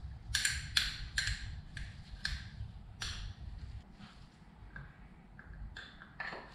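Small parts of an oil filter assembly clicking and tapping while handled by gloved hands: an O-ring is fitted to the plastic filter cover and a new filter element is pushed onto it. A quick run of sharp light clicks comes in the first three seconds and a couple more near the end, over a low steady rumble.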